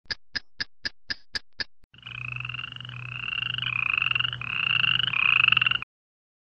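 Animal call: about seven sharp clicks at roughly four a second, then a pulsing trill in five phrases, each rising slightly in pitch. It cuts off suddenly near the end.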